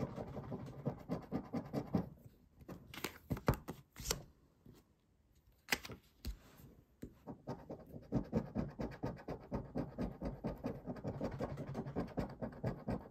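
A coin scraping the silver coating off a paper Banco scratch card in quick, short strokes. About two seconds in the scratching stops for a few seconds, broken only by a few sharp taps as a fresh card is set down, then the coin scraping resumes on the new card.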